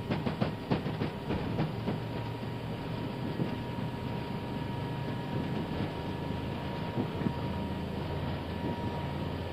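Airbus A320neo cockpit during the takeoff roll at set takeoff thrust: a steady rush of engine and airflow noise over a low rumble, with the wheels knocking repeatedly on the runway, most often in the first couple of seconds.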